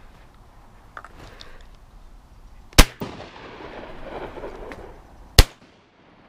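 Two shots from an over-under double-barrel shotgun fired at mallards in flight, about two and a half seconds apart. The first shot is followed by a long echo fading away.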